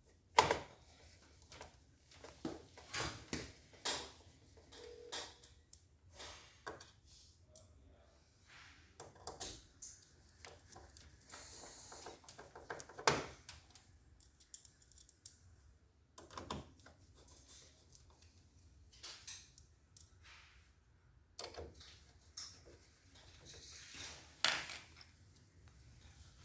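Scattered clicks, taps and scraping of hands and a screwdriver working on a copier's main motor drive assembly, its parts being fitted back and screwed in. The louder knocks come about half a second in, about 13 seconds in and near the end.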